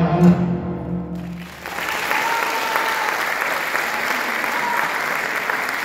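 Music with a held brass chord dies away in the first second and a half, then an audience applauds steadily.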